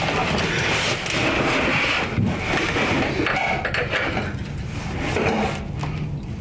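A box-end wrench working the drain plug loose on a car's oil pan, with metal scrapes and a few knocks.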